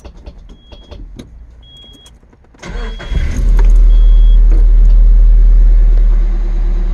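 A key clicks in the ignition while a warning chime beeps about once a second. About three seconds in, the 2000 Nissan Frontier's four-cylinder engine cranks, catches within half a second and runs loud, easing slightly toward idle near the end: the truck starting on its newly replaced ignition switch.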